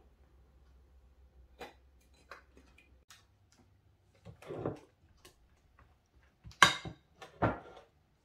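Spatula and glass mixing bowl knocking and clattering while cream filling is scooped out and spread into a baking dish: a few scattered taps, the loudest a sharp knock about two-thirds of the way through.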